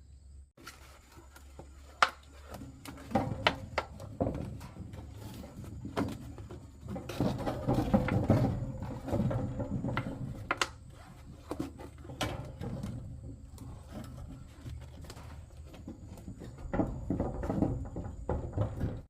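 Irregular knocks and clatter of objects being handled, with two busier stretches, one about seven seconds in and one near the end.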